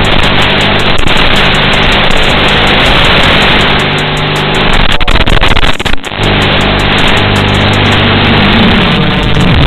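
FPV quadcopter's motors and propellers buzzing in flight, harsh and distorted. The sound cuts out briefly about six seconds in, and its pitch rises near the end.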